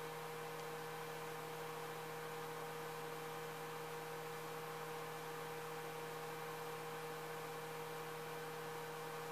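Faint, steady electrical hum over a light hiss, with no other sound.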